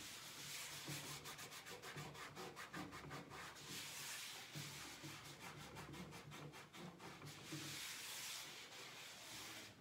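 A cloth rubbed back and forth across a tabletop, wiping up small spills. There is a run of quick scrubbing strokes a couple of seconds in, and the rubbing stops just at the end.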